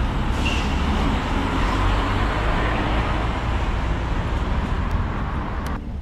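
A heavy industrial materials truck drives past on the road, its diesel engine and tyres making a steady rumbling road noise that drops away near the end.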